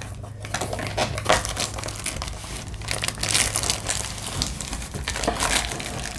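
Crinkling plastic wrap and scraping cardboard as a kit box's end flap is opened and its plastic-wrapped contents are worked out. The rustling is irregular, with small snaps and scuffs, because the contents stick in the tight box.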